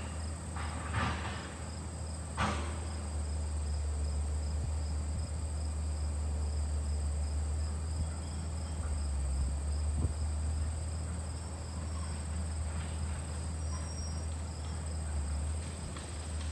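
LG air conditioner's outdoor condensing unit running steadily under load with a low hum, its newly replaced condenser fan motor turning.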